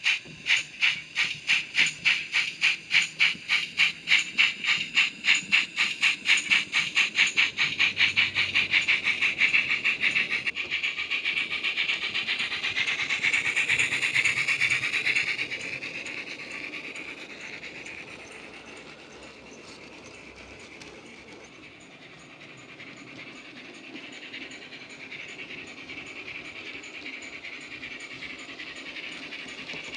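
Model GWR 16XX pannier tank's ESU LokSound 5 sound decoder playing steam exhaust chuffs through the loco's built-in speaker. The beats quicken from about three to about five a second as the loco picks up speed, merge into a steady hiss, then turn quieter about halfway through as the train moves away.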